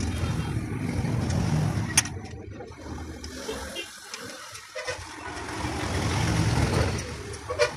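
Street traffic running past, a low rumble of motor vehicles that swells at the start and again after the middle. A single sharp knock comes about two seconds in, and a smaller one near the end.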